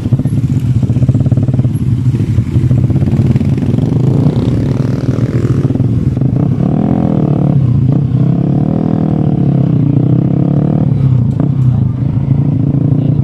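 A vehicle engine running steadily close to the microphone, its pitch wavering up and down for a few seconds past the middle, with a few light knocks.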